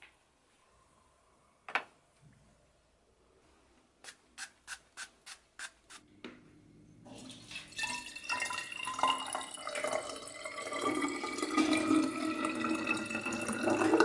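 Water poured from a plastic bottle into a glass water bottle, the pitch rising steadily as the bottle fills. Before the pour comes one sharp knock, then a quick run of about seven clicks.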